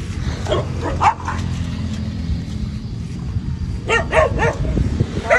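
A dog trapped in a drainage channel, barking and yelping: a few short barks about half a second to a second in, and another quick run of them near four seconds in, over a steady low rumble.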